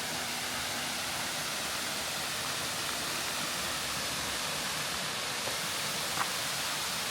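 Steady rushing of a waterfall pouring into a gorge.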